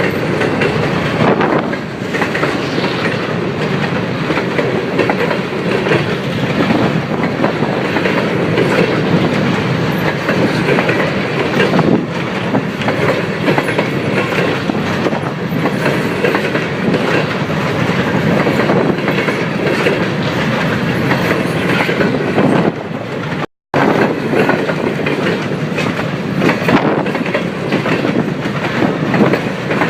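A CN freight train rolling steadily past, its cars' wheels rattling and clicking in a continuous clatter over the rails. The sound cuts out for an instant about two-thirds of the way through.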